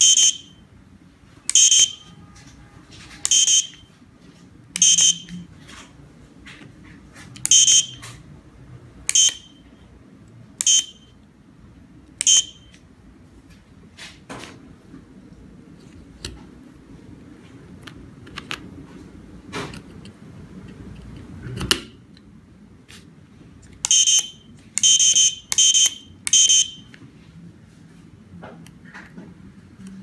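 Short electronic beeps from the buzzer on a 433 MHz wireless remote-control test board as its buttons are pressed, each under half a second at the same steady pitch. About eight come at roughly one-and-a-half-second intervals, then a few faint clicks and knocks, then four quicker beeps near the end.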